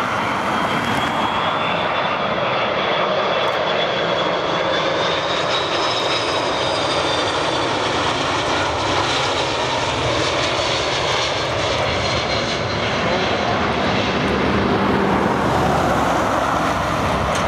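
The two General Electric CF6-80E1A4B turbofans of an Airbus A330-202 airliner passing low on landing: a loud, steady jet roar with a high fan whine that rises and then falls in pitch as the aircraft goes by, growing a little louder near the end.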